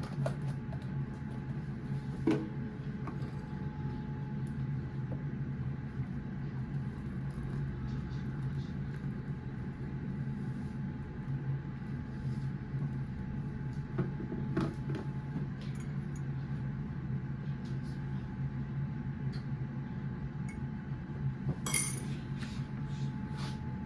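Dishes and cutlery clinking and clattering now and then over a steady low hum, with a brief burst of clinks near the end.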